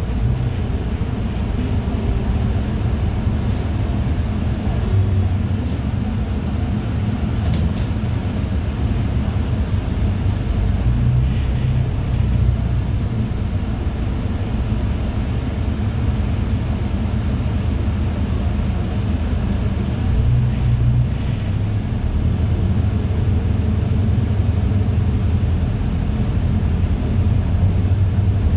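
City bus running, heard from inside the passenger cabin: a steady low engine and road rumble.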